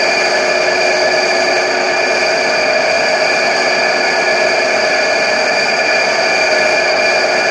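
Lathe running steadily: a continuous machine whine of several held tones over a noisy hiss, with no change in speed.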